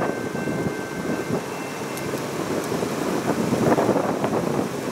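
Wind buffeting the microphone: a rough, fluctuating rumble of noise, with faint steady tones in the first two seconds.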